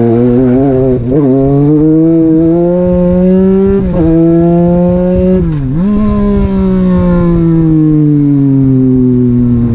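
A Legends car's motorcycle engine, heard from inside the cockpit under hard driving. The revs climb for the first four seconds, with a brief dip about a second in. They fall sharply a little past halfway, then pick up again and ease slowly down toward the end.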